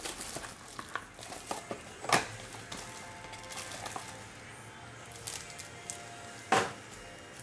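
A cardboard trading-card box being opened and a stack of cards in a clear plastic wrapper pulled out and handled: rustling and crinkling with a few sharp clicks, the loudest about two seconds in and again near the end.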